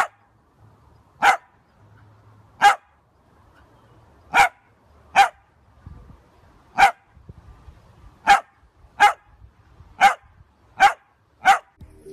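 A long-haired dachshund barking: single short, sharp barks, about one a second, some eleven in all.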